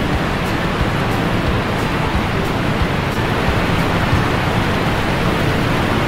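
Waterfall pouring in a sheet over a low dam into a shallow rocky pool: a loud, steady rush of falling water.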